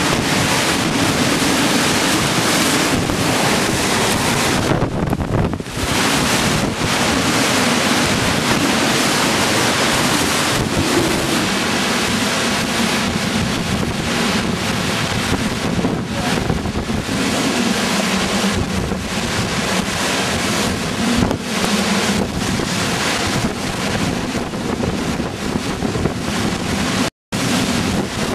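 Hurricane wind and heavy driving rain: a loud, steady rush that swells with the gusts, with the wind buffeting the microphone.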